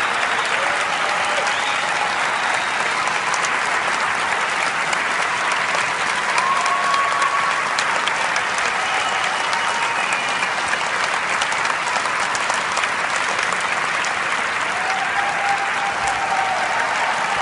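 Large audience applauding steadily, a dense continuous patter of many hands clapping, with a few brief high calls or whistles rising above it.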